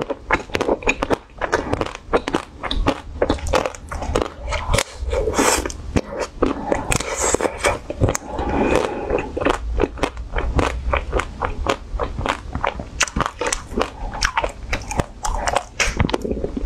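Close-miked biting and chewing of a frozen ice cream bar, with dense, rapid crunching and crackling of the icy bar between the teeth.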